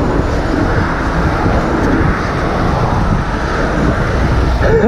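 Steady road traffic noise: a low rumble with a hiss over it.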